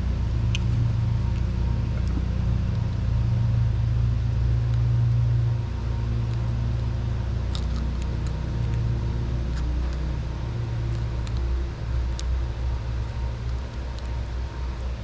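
A steady low mechanical rumble, heaviest for the first six seconds and a little lower after, under scattered light metallic clicks of pliers working the tabs of a metal bulb socket.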